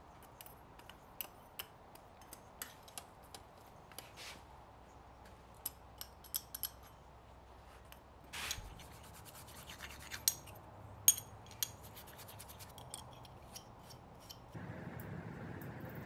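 A block of beeswax rubbed onto a hot forged-steel leaf buckle: scattered sharp crackles and pops as the wax melts and smokes on the metal, with a short hiss about eight and a half seconds in. Near the end it gives way to a steady background noise.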